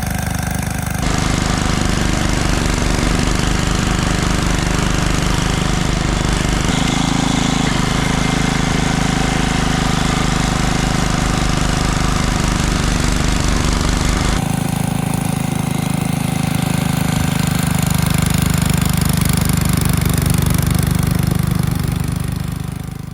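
Petrol snowblower engine running steadily with an even low chugging, the sound shifting abruptly a few times as clips change.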